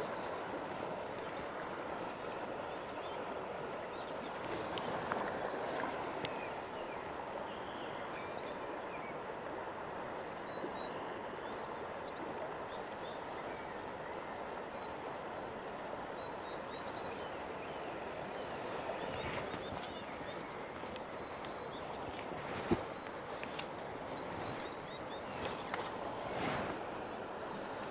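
A fast, flooded river rushing steadily, with small birds chirping faintly over it and a single sharp click about two-thirds of the way through.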